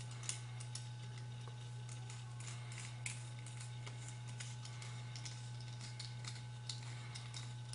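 Light, scattered clicks of a small metric Allen key and set screw being worked into a brass paintball-gun bolt, over a steady low hum.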